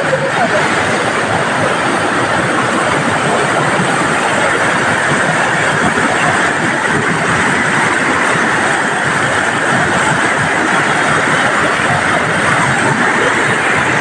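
Shallow waterfall rushing steadily down a broad slope of bare rock: a loud, even rush of water close to the microphone.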